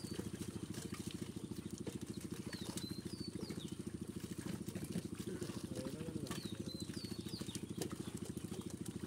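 A small engine running steadily with a rapid, even chug.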